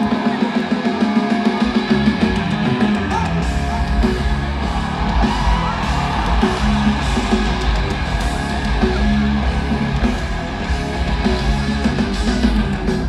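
Live band playing a loud rock intro led by electric guitar. The heavy low end of bass and drums comes in about two seconds in.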